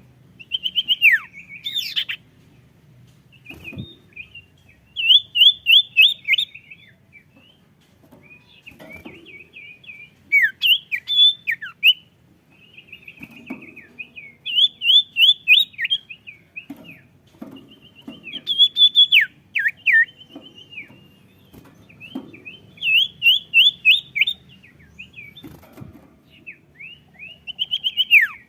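A sirtu songbird singing hard and persistently: about seven loud bursts, one every three to four seconds, each a quick run of sharp, falling whistled notes, with softer twittering between the bursts.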